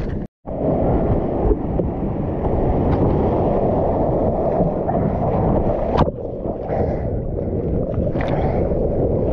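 Churning shorebreak whitewash rushing over a GoPro at water level, a steady muffled rush of water heavy in the low end, with the microphone at or under the surface. The sound cuts out for a moment near the start, and a sharp knock comes about six seconds in.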